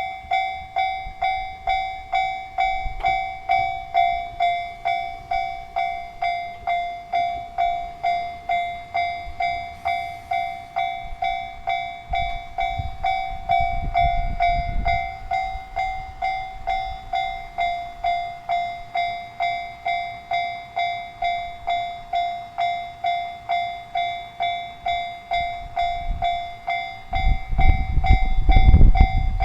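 Japanese level-crossing warning bell ringing steadily, about one and a half strokes a second. A low rumble swells partway through, and near the end a diesel railcar's rumble rises to the loudest point as the train reaches the crossing.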